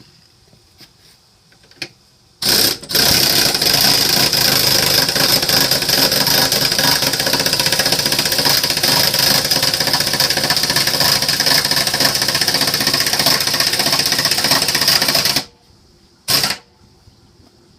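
Power impact wrench hammering: a short blip, then one long run of about thirteen seconds, then another brief blip near the end.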